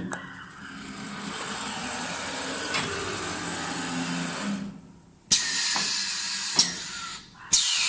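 Automatic wood lathe cycling between stool legs: the machine running with several sharp clunks as the finished leg is released and a new wooden blank is loaded and clamped, and a falling whine near the end.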